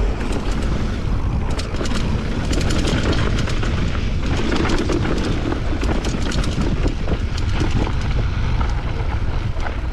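Mountain bike clattering over a rough bike-park trail at speed, with many sharp clicks and knocks, under heavy wind buffeting on the microphone.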